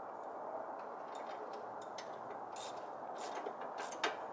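Irregular light metallic clicks of a wrench working the steering stabilizer relocation bracket's bolts as they are tightened, the sharpest about four seconds in, over a steady low hiss.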